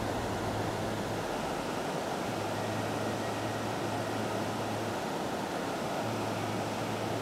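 Steady rushing of river water over a rocky riffle, with a faint low hum coming and going.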